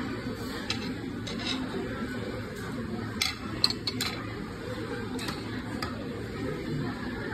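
Chopsticks and a small bowl clicking and clinking while someone eats from the bowl, a few sharp clicks bunched about three to four seconds in, over the steady low hum of a restaurant dining room.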